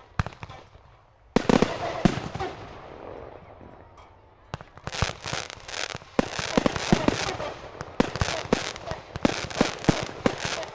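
Class C consumer fireworks going off: a sharp bang about a second and a half in and another half a second later, each trailing off. Then, from about four and a half seconds, a rapid string of cracks and pops, several a second, over a steady crackle.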